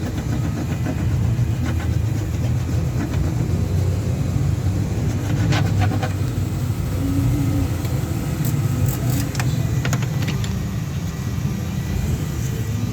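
Car engine idling with a steady low rumble, with a few sharp clicks about midway and again a couple of seconds later.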